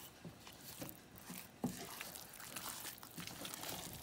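Wooden spatula stirring thick, moist gari mash (pinon) in a pot: soft, irregular scraping and squishing, with one sharper tap about one and a half seconds in.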